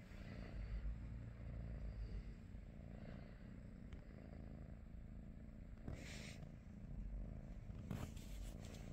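A British Shorthair cat purring steadily, a low, fast rumble. A brief rustle about six seconds in and a few faint clicks near the end.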